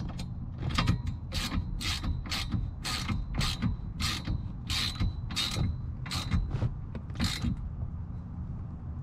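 Hand ratchet with an 8 mm hex bit tightening a harness bar's mounting bolt, clicking about twice a second with a faint ringing after each stroke, stopping shortly before the end.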